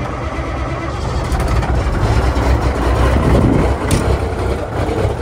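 A 1979 Kenworth W900A's diesel engine running at idle seconds after a cold-morning start, a little louder around the middle. A single sharp click near four seconds in.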